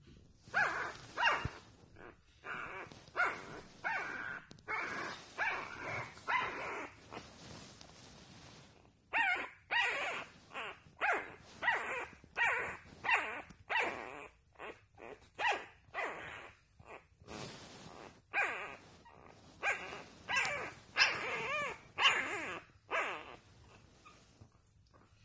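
Shar-Pei puppies yipping and giving little squeaky barks and whines in a long run, one or two calls a second with bending pitch, broken by a pause about a third of the way through: puppy play-fighting noises.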